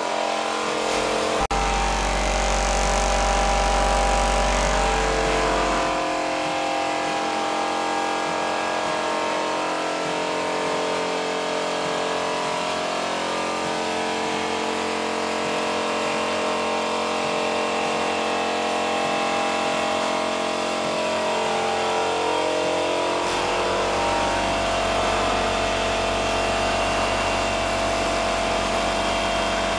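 Powder packing machine running: a steady mechanical hum with several held tones. A deeper low hum comes in from about a second and a half to six seconds in, and again from about twenty-three seconds on.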